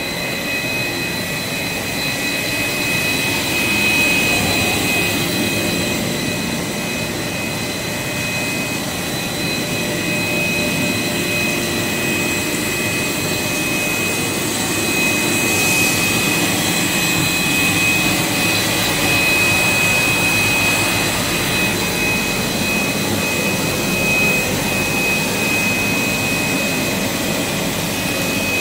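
Air bubble film making machine running: a steady whirring machine noise with a constant high whine over it.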